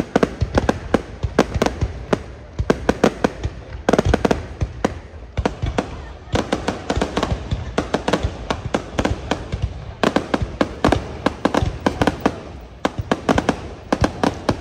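Aerial fireworks going off in a dense, continuous barrage of sharp bangs and crackles, several a second, with heavier clusters of bangs about 4 and 10 seconds in.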